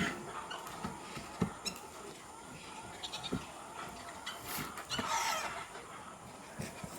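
A farm animal calls once, about five seconds in, over faint scattered knocks and clicks.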